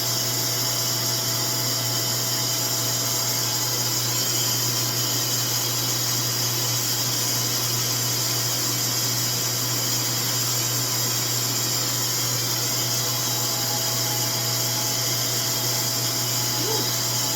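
RevAir reverse-air hair dryer running steadily, its motor whirring under a constant rush of suction and air through the wand as it dries a section of hair.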